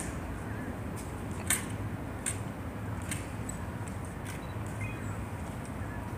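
Hushed outdoor crowd ambience: a steady low hum with a handful of sharp, irregular clicks about a second apart, the loudest about a second and a half in.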